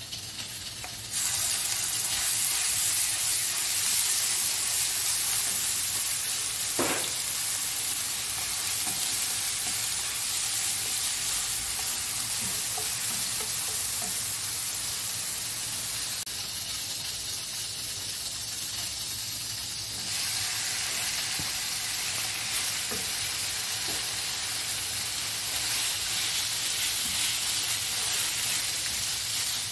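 Hot oil sizzling steadily in a non-stick frying pan, starting suddenly about a second in as minced garlic goes in, then frying diced raw chicken. A nylon spatula stirs the food, with occasional light scrapes and taps on the pan.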